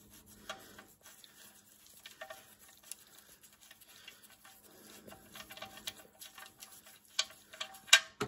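Loosened oil-sump drain plug being unscrewed by gloved fingers: faint scattered clicks and scratches of the plug turning on its threads, with two sharper clicks near the end.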